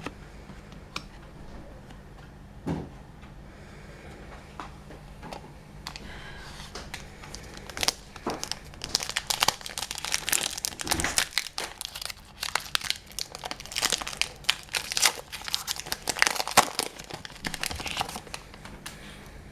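Trading-card booster pack wrapper being torn open and crinkled. A few light clicks come first; the tearing and crinkling starts about six seconds in and goes on for some twelve seconds.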